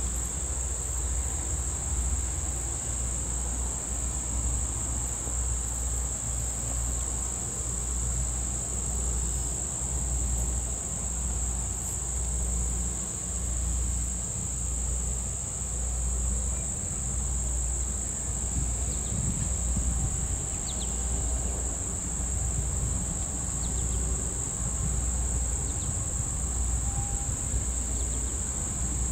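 A steady, high-pitched chorus of insects, one unbroken tone, over an uneven low rumble.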